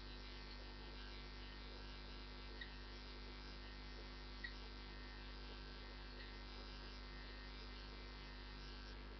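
Steady low electrical mains hum with a faint hiss, and two faint clicks a couple of seconds apart.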